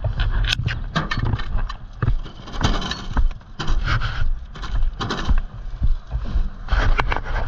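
Footsteps and scuffs on a wet street, irregular knocks over a steady low rumble and hiss.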